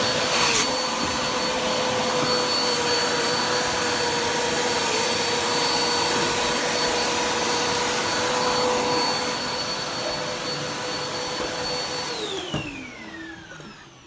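Vacuum cleaner running steadily with a high motor whine, then switched off about twelve seconds in, its whine falling in pitch as the motor winds down.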